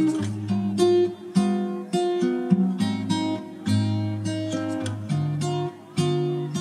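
Background music played on acoustic guitar: a steady run of plucked notes.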